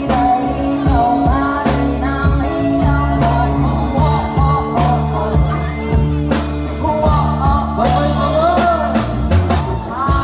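Music: a song with a singing voice over steady bass notes and regular drum strokes.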